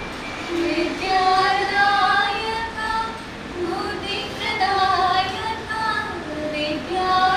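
Two young women singing a devotional prayer song together into a microphone, in long held melodic notes with a brief breath pause partway through.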